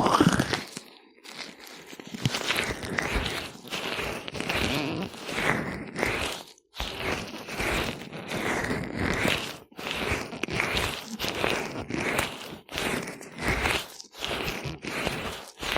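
Gloved hands rubbing oil over ears in an ASMR ear massage: repeated slick rubbing strokes, about one a second, with brief pauses between some of them.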